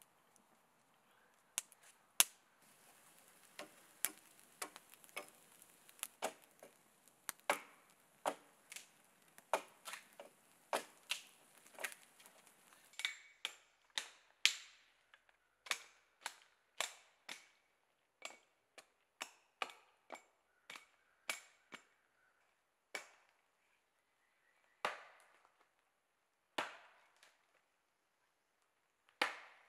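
A small wood campfire crackling, with a faint hiss and sharp irregular snaps. About halfway through this gives way to an axe chopping into the base of a small tree, sharp strikes about one to two a second that slow to a few spaced blows near the end.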